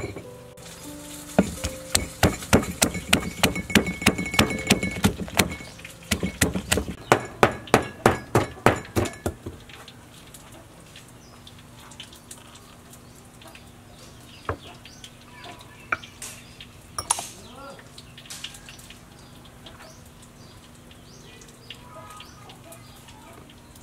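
Wooden pestle pounding in a mortar: a quick, even run of knocks, about three to four a second, with a short break midway. After about ten seconds the pounding stops and only a few light taps and clinks remain.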